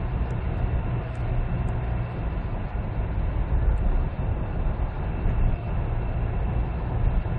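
Steady in-cabin drone of a 2003 Kia Sorento diesel cruising at about 80 km/h, engine turning around 1,800–1,900 rpm, mixed with road and tyre noise.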